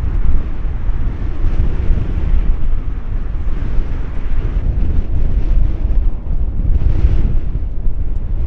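Wind buffeting the microphone over the steady low rumble of an Airbus A330-200F freighter's jet engines at taxi power.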